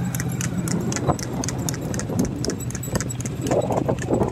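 Bull's hooves clip-clopping on tarmac at a trot, about four beats a second, over the low rumble of a two-wheeled cart rolling behind it, with a light metallic jingle of harness or cart fittings.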